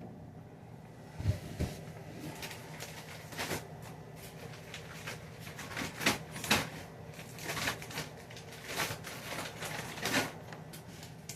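Plastic water bottles being set into a refrigerator one after another: a run of short knocks and crinkling rustles, with two dull thumps about a second in.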